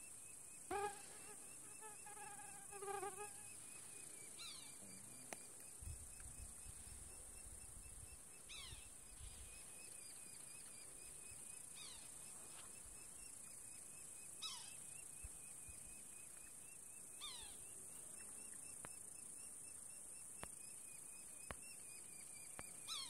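Faint high hum of insects in a mountain meadow, with a mosquito whining close by briefly about a second in and again around three seconds in. Short falling chirps, likely from a bird, repeat every few seconds.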